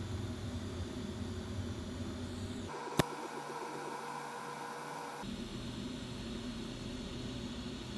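Steady background hum and hiss that changes abruptly twice, as clips are cut together, with one sharp click about three seconds in.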